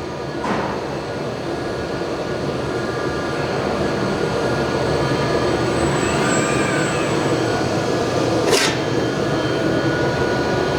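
Steady machine whir and hum from the laser welding cell's equipment, growing slightly louder, with a single short sharp sound near the end.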